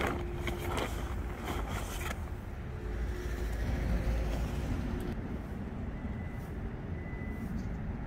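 A large black plastic bag crinkling as it is folded up for about two seconds, then a steady low outdoor rumble.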